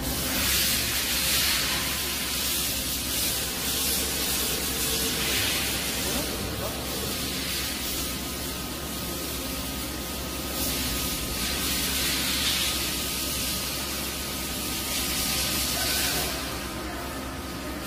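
A loud hiss like rushing air that starts abruptly and swells and eases every few seconds, over a faint steady whine from a CNC horizontal boring mill as its spindle head travels up the column.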